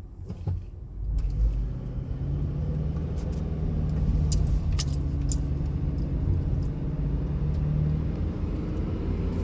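A car running at low speed, heard from inside the cabin: a steady low engine hum and road rumble, with a few light clicks or jingles about halfway through.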